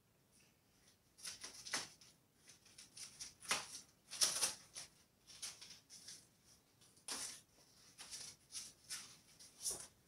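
White foam packing sleeves and wrapping being pulled and peeled off a new bicycle frame: a run of irregular rustling swishes and crinkles.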